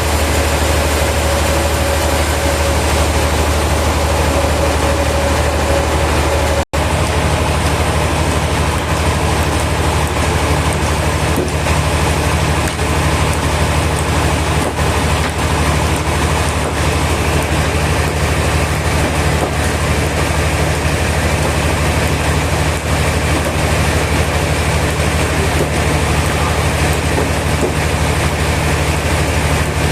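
Sawmill machinery running steadily: a loud constant low hum under a noisy hiss. It drops out for an instant about seven seconds in, where a steady whine in the first part stops.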